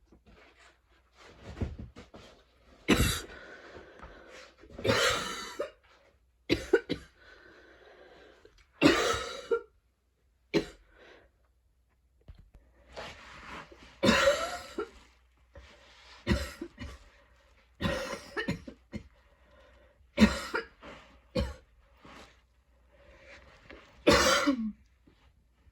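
A young woman in a choky coughing fit: a dozen or so coughs come in short clusters, with quieter breaths drawn between them. She puts the attack down to going to the gym two days in a row.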